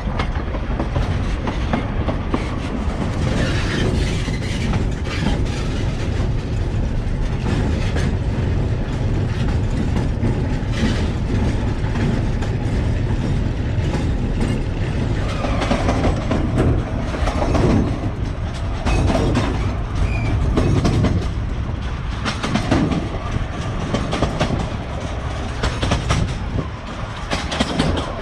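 Carriages of a 750 mm narrow-gauge passenger train running, heard from on board: a steady rumble of the wheels with the clickety-clack of rail joints.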